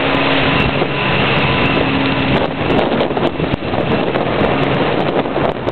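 Firefighting helicopter flying away overhead, its engine and rotor noise steady with a faint held tone at first. From about halfway through it turns gusty as wind buffets the microphone.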